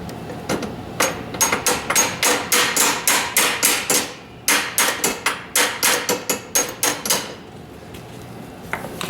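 Hammer blows on a seized pin in the Kawasaki KLT 200C three-wheeler, trying to drive it out. The strikes come in two quick runs of about four a second with a short pause between, each with a light metallic ring. The pin is stuck fast and does not move.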